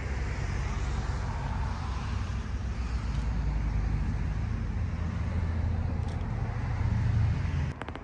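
Steady low rumble of a moving vehicle, with road and wind noise over it, cutting off abruptly near the end.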